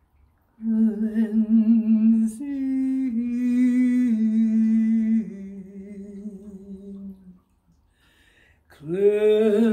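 A single voice toning long, held, wordless notes with a wavering vibrato, stepping up and then down in pitch in slow steps. After a short pause near the end, a new note slides up and holds. This is healing chant used for a cleansing.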